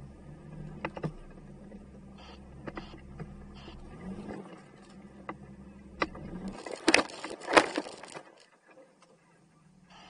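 A Jeep crawling up a rocky hill: its engine runs low and steady under light throttle, with scattered sharp knocks and clunks of tyres and chassis on rock. About six and a half seconds in comes a loud burst of scrabbling and crunching with two hard knocks, which then drops away.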